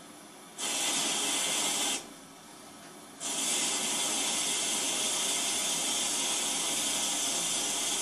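Mains water hissing through the open filling-loop valve into a combi boiler's sealed central heating system to raise its pressure. The hiss starts about half a second in, breaks off briefly around two seconds, then resumes and runs steadily.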